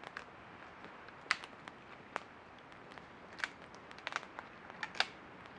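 Wood campfire crackling: irregular sharp pops and snaps over a faint steady hiss, with three louder pops about a second, three and a half seconds and five seconds in.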